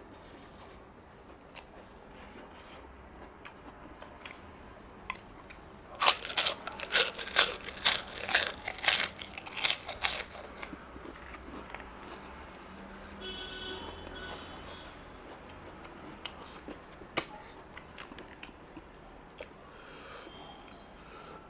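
Close-miked biting and chewing of crunchy food, with a run of loud, rapid crunches from about six to ten and a half seconds in, then quieter chewing with the odd click.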